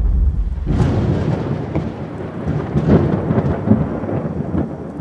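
Thunder sound effect: a sharp crack about a second in, then a rolling rumble with a rain-like hiss that slowly fades.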